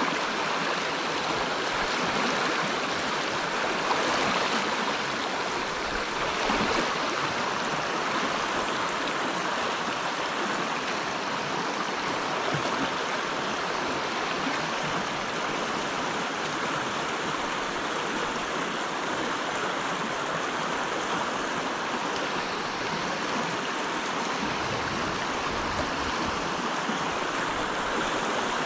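River water flowing steadily over stones in a shallow riffle, an even, unbroken rushing sound.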